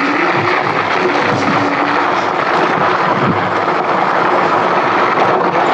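Steady rush of wind on a handlebar-mounted microphone, mixed with fat tyres rolling over gravel, as an Engwe X-series electric bike rides at about 12 mph. A faint steady whine sits under it for the first couple of seconds.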